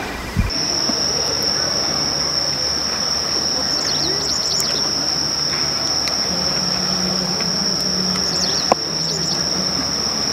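An insect singing one steady high-pitched note, with a few short bird chirps and a low droning hum underneath. It starts about half a second in, and there is a single sharp click near the end.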